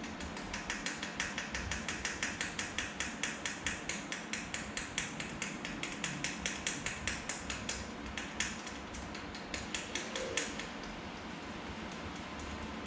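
Rapid, regular clicking, about five clicks a second, from a folding bike wheel being worked by hand as the lock ring is fitted on the inner tube's Presta valve; it stops after about eight seconds, with a few more clicks near ten seconds.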